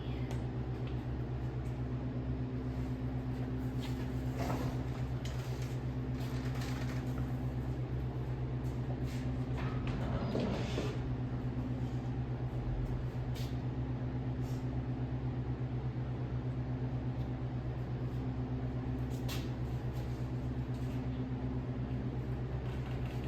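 A motor-driven machine running steadily with an even low hum, broken only by a few faint knocks.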